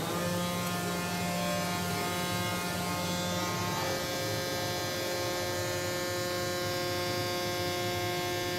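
Steady hum of a Zund digital cutting machine standing idle after a cut, made of several steady tones whose mix shifts about four seconds in.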